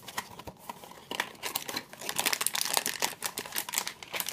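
Crinkling and crackling of packaging being handled as a small cardboard Vinylmation blind box is opened and the figure unwrapped, in rapid irregular crackles that grow denser and louder about a second and a half in.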